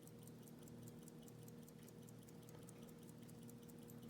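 Near silence: room tone with a faint steady hum and faint, fast, regular ticking, several ticks a second.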